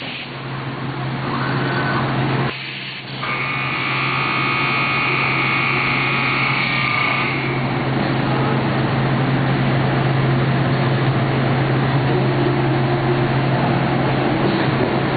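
Biesse Skipper 100 CNC panel boring machine running with a steady low hum, and a high steady whine for a few seconds near the start.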